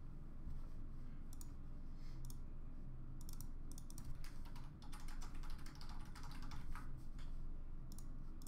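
Typing on a computer keyboard: irregular runs of quick keystrokes and clicks, over a low steady hum.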